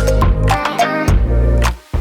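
Background music: an electronic track with a strong bass and a drum beat.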